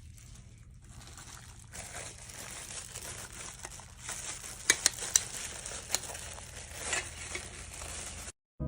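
Rustling, crinkling handling noise with a few sharp clicks about five seconds in, over a low steady hum. It stops abruptly near the end.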